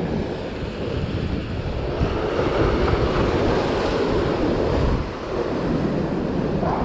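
Sea surf breaking and washing over the rocks of a breakwater, with wind buffeting the microphone. The noise swells louder about two seconds in and eases off near the five-second mark.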